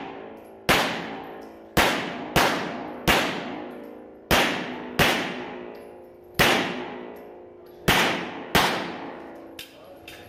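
Hudson H9 9mm pistol firing nine shots at an uneven pace, several as quick pairs about half a second apart, each shot echoing off the walls of an indoor range.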